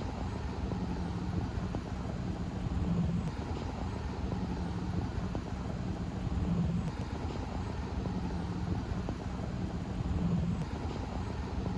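Steady low engine drone with outdoor background noise, its low hum swelling and easing every few seconds.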